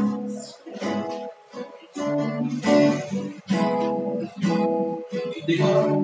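Acoustic guitar strumming chords in a stop-start rhythm, several chords cut short.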